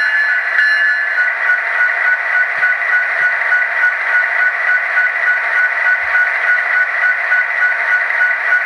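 Digital sound decoder playing a recorded EMD 16-cylinder 710 diesel prime mover idling, heard through the tiny speaker of an N-scale model locomotive as a steady, thin, tinny hum. A faint high tone pulses at an even rhythm over it from a few seconds in.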